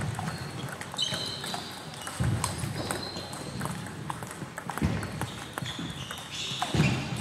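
Sounds of a table tennis hall: shoes squeaking on the wooden sports floor a few times, several dull thuds, and scattered small clicks of table tennis balls, with faint voices in the hall.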